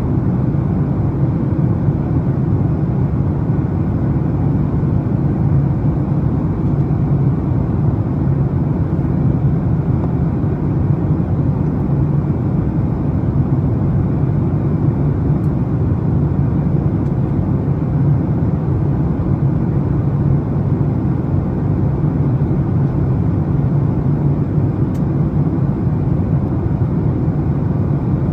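Steady low roar inside a jet airliner's cabin in flight, by the wing: the turbofan engines and rushing air.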